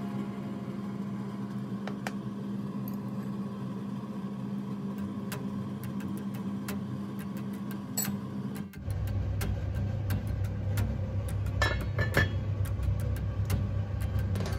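A steady low motor-like hum with scattered sharp clicks and crackles. About nine seconds in, after a brief drop, the hum sits lower and louder and the clicks grow more frequent.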